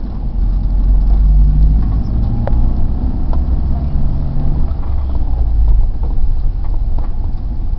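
Engine and road rumble of a slow-moving vehicle heard from inside its cabin: a steady, deep rumble with a low hum.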